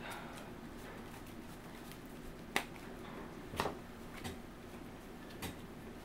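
Four sharp taps of cards being put down on a tabletop, spread over a few seconds, over a steady low room hum.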